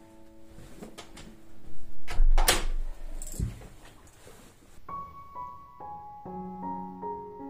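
Someone coming in through a front door: a heavy thud and knocks with rustling of clothes and a bag, the loudest about two seconds in, under soft background music. From about five seconds in a gentle piano melody plays.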